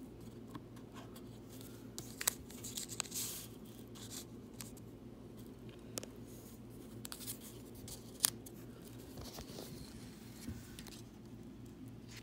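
Paper craft pieces being handled and pressed down: scattered light taps and clicks with brief rustles of paper, over a faint steady low hum.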